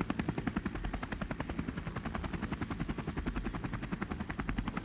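Helicopter rotor chopping in a fast, even beat, heard from the aircraft in flight.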